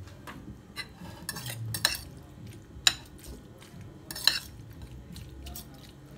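Metal fork stirring soft chopped vegetables and onion in a ceramic bowl, clinking sharply against the bowl about four times, roughly once a second, with quieter scraping between.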